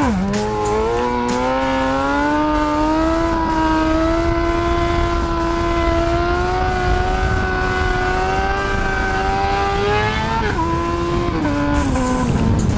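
Motorcycle engine snapping up in revs, then pulling hard in one gear with the pitch climbing slowly and holding through a wheelie. About ten seconds in the revs drop in two steps as the throttle comes off, with wind noise throughout.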